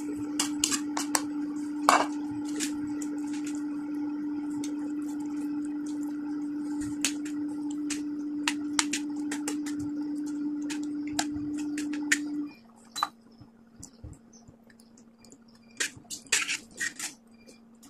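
Metal spoon clinking and scraping against a stainless steel pan while raw minced pork is stirred and broken up in water, with many sharp clinks. A steady hum underneath drops to a lower, fainter tone about twelve seconds in.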